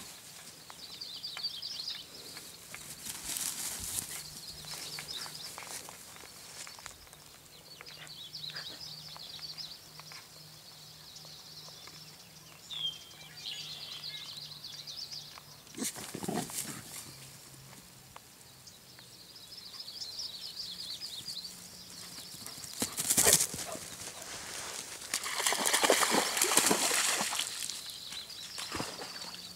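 Outdoor ambience with birds chirping on and off in the background, over a faint steady low hum. Several loud rustles of movement through grass and brush break in, the loudest near the end.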